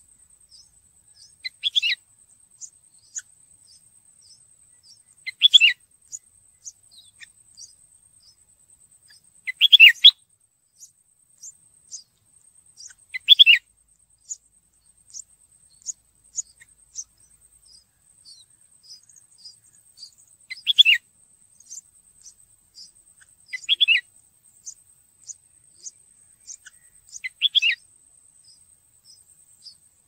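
Red-whiskered bulbuls calling at the nest: seven loud, short, sharp calls a few seconds apart, with many fainter brief chirps between them, over a thin, steady high tone.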